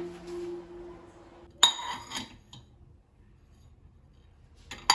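Ceramic dishes clinking: one sharp clink with a short ring about a second and a half in, and another just before the end.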